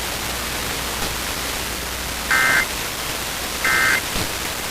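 Steady static hiss, broken by two short, shrill EAS data bursts about 1.4 s apart: the end-of-message (NNNN) code that closes an emergency alert.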